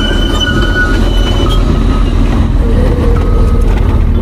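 Vehicle engine running with a steady low rumble, and a few thin high-pitched squeals or whistles coming and going over it.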